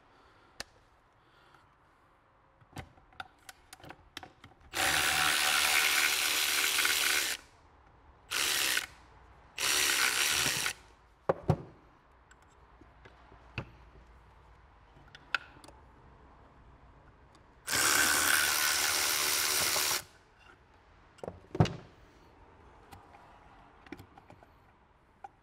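Cordless electric ratchet running in bursts to undo the fixings on a clutch actuator cover: a run of about two and a half seconds about five seconds in, two short runs just after, and another of about two seconds near the middle. Between the runs there are sharp clicks and knocks of the metal and plastic parts being handled.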